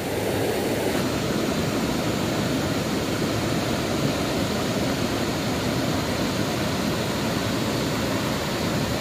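Steady, even rushing of flowing river water.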